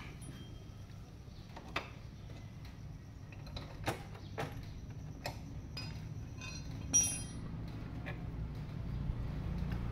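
Scattered metal clinks and knocks from tools working on a motorcycle's rear axle and chain adjuster. The loudest comes about seven seconds in and has a short ringing edge. A low hum grows near the end.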